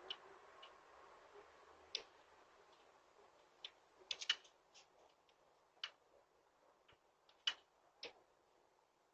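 Near silence broken by scattered short, sharp clicks at irregular intervals, with a quick run of three about four seconds in.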